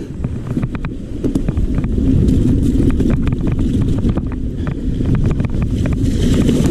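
Wind buffeting the camera microphone of a moving mountain bike rider, a steady low rumble, with frequent sharp clicks and rattles from the bike running over rough trail.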